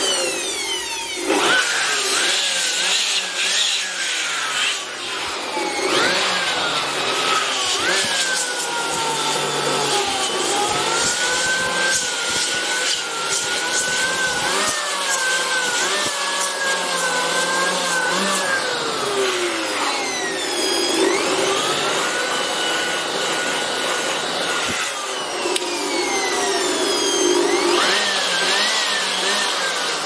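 Electric air blower running, blowing dust out of a laptop's cooling fan and heatsink: a steady rushing noise with whining tones that glide up and down in pitch.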